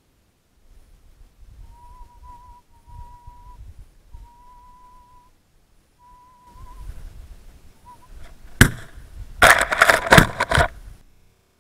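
A faint, thin, steady whistle-like tone comes and goes through the first half. Past the middle come a series of very loud sharp cracks and knocks in quick succession, with rustling between them.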